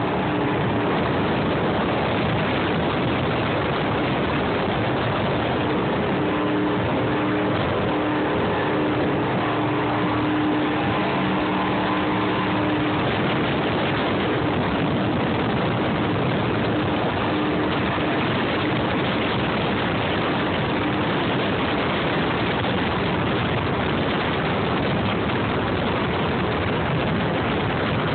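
Twin MerCruiser 350 V8 stern-drive engines of a Sea Ray 290 SLX running at speed, heard as a steady, even rush of engine, wind and water from on board, with a faint engine hum showing through.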